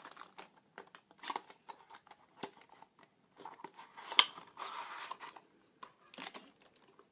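Cardboard perfume box being opened by hand: light scrapes and clicks as the inner paperboard tray is pushed out of its sleeve, with a sharp click about four seconds in followed by a scraping slide lasting about a second.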